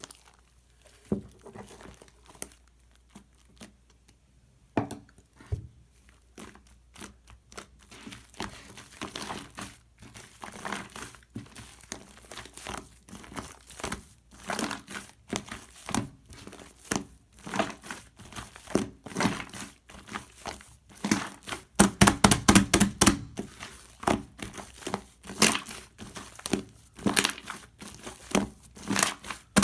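Hands squishing, stretching and pressing shaving-foam slime, giving wet crackling and popping as air pockets burst. The strokes are sparse at first, then come thickly, with a fast, loud run of crackles about 22 seconds in.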